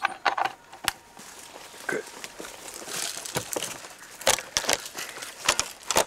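Handling noise from setting up field playback gear, an iPod and a loudspeaker box: crinkly rustling broken by several sharp clicks and knocks.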